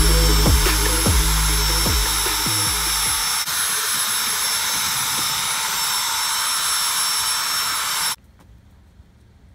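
Corded power drill with a paddle mixer running steadily, a motor whine over the churn of a wet cement mix in a metal wheelbarrow. It cuts off suddenly about eight seconds in.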